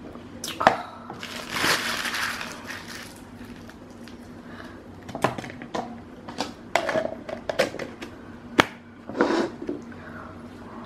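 Paper or plastic food packaging being crinkled and crushed by hand: a sharp click near the start, a burst of crinkling about two seconds in, then a string of short clicks and rustles in the second half.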